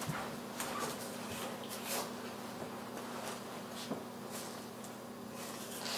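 Kitchen knife trimming puff pastry on a wooden cutting board: a few faint, scattered taps and scrapes over a steady low hum.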